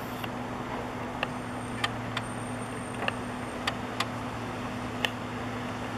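A steady low mechanical hum over a haze of outdoor noise, with a series of sharp clicks at irregular intervals.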